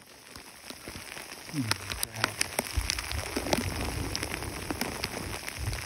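Heavy thunderstorm rain falling, with many sharp ticks of drops striking close by. It grows louder over the first two seconds.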